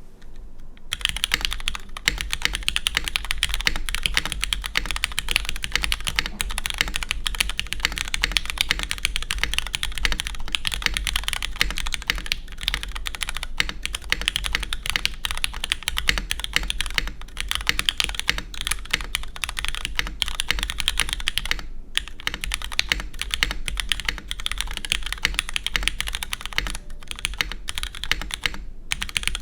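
Continuous fast typing on a Merisi 500c 65% mechanical keyboard with lubed Cherry MX Black linear switches on a carbon fiber plate and GMK keycaps: a dense clatter of keystrokes. It starts about a second in and breaks briefly near 22 and 29 seconds.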